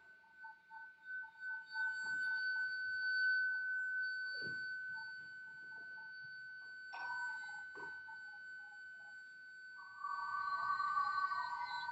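Electronic tones: a steady high whistle-like tone held throughout, with a lower tone pulsing two or three times a second, a short falling sweep about four seconds in, two clicks around seven to eight seconds, and a cluster of warbling tones near the end.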